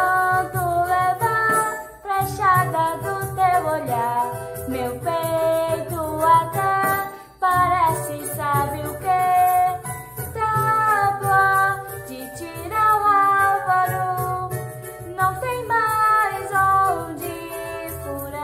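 A girl singing a samba melody in Portuguese, with the accompaniment of a pulsing bass and light, shaker-like percussion.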